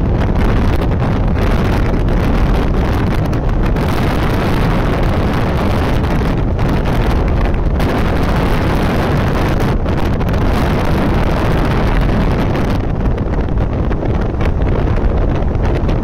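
Wind buffeting the microphone of a Hero Honda CBZ 150cc motorcycle at riding speed, with the single-cylinder engine running underneath. A loud, steady rush with no let-up.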